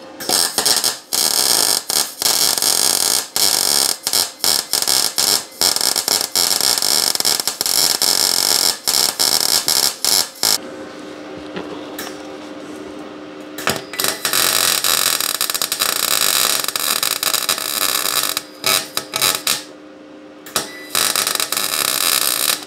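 Electric arc welding: tack welds being laid on the repaired exhaust pipe of a Polaris Sportsman XP 1000, a crackling hiss in bursts. One long burst runs about ten seconds, then after a pause with a low steady hum a second burst of about four seconds follows, and a few short ones near the end.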